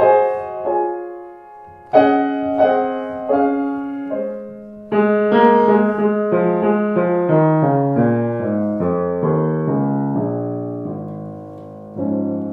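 1887 Blüthner style VIII grand piano, newly restored with new hammers, being played: chords that ring and fade, a strong chord about five seconds in followed by a descending line of notes, and a fresh chord near the end.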